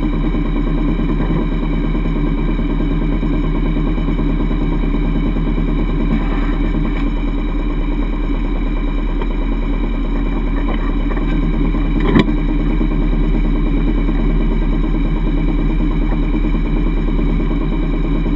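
Kawasaki Brute Force ATV engine idling steadily, with one sharp click about twelve seconds in.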